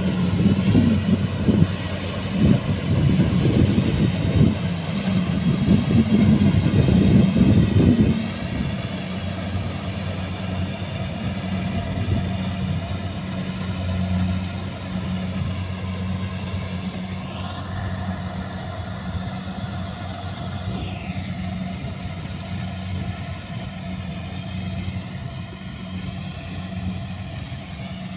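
Kubota combine harvester's diesel engine and threshing gear running steadily while it cuts ripe rice. It is louder and rougher for the first eight seconds or so, then settles into an even drone.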